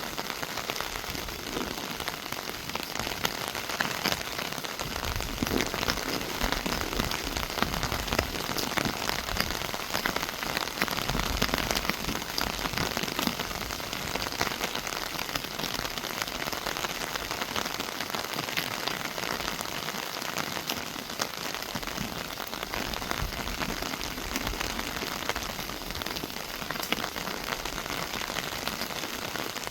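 Steady monsoon rain falling on trees and foliage, a dense patter of drops.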